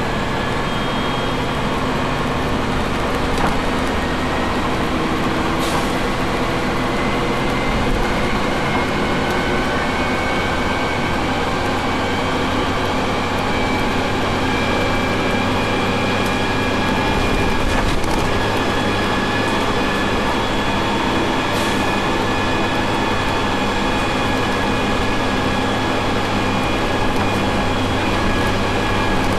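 Double-decker bus heard from on board near its gearbox: a steady drone under a gearbox whine of several tones that climbs slowly in pitch as the bus gathers speed. Two faint brief ticks about 6 and 22 seconds in.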